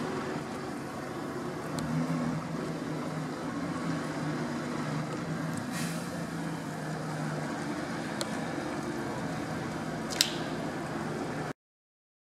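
Street traffic on a wet road: vehicle engines running with a low steady hum, a couple of sharp clicks, then the sound cuts off suddenly a second before the end.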